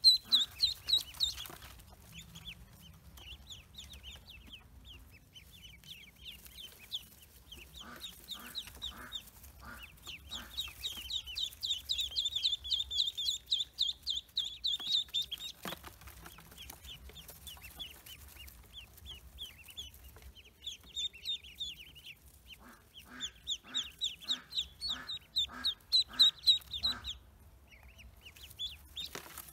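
Pekin ducklings peeping in rapid, high-pitched chirps, loudest in two spells. Twice, a lower, evenly paced clucking call from an adult bird joins in for a few seconds.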